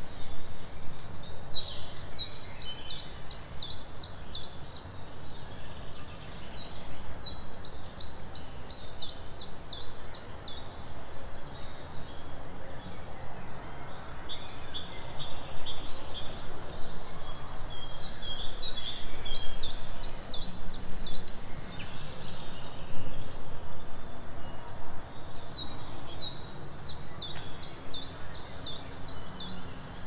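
A songbird singing the same phrase four times, each phrase a run of about a dozen quick, high, downward-sliding notes lasting two to four seconds. Other birds call more softly between the phrases, over a steady low background rumble.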